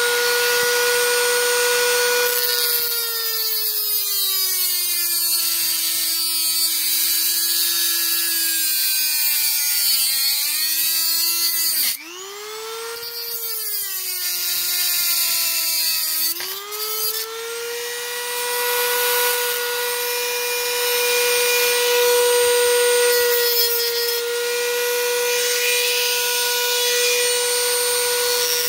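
Dremel rotary tool with a cut-off wheel cutting through a model truck's body. The motor's high whine sinks in pitch as the wheel bogs under the cut, dips sharply about twelve seconds in, then climbs back to full speed and runs steady under a grinding hiss.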